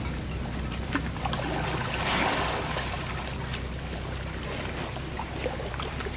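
Water buffaloes wading and wallowing in shallow muddy water: sloshing and trickling water with small scattered splashes, and a louder splash about two seconds in, over a steady low rumble.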